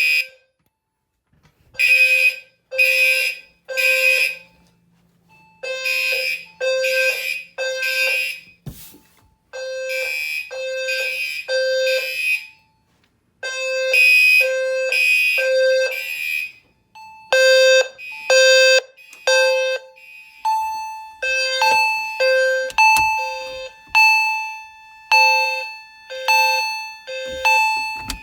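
Fire alarm notification appliances sounding the temporal-three evacuation pattern, three one-second blasts then a pause, over and over, set off by a manual pull station. Among them is a low-pitched System Sensor HW-LF low-frequency sounder. Past the middle, another higher tone joins and the appliances drift out of step, their blasts overlapping, with a single click about nine seconds in.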